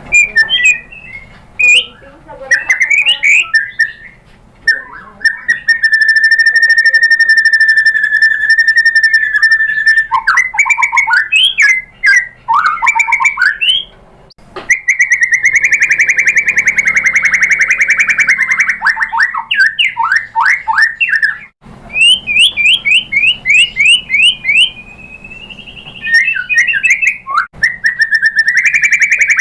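White-rumped shama (murai batu) singing. Its song has long held whistles broken by fast runs of short sweeping notes and chatter, with a rising glide near the end.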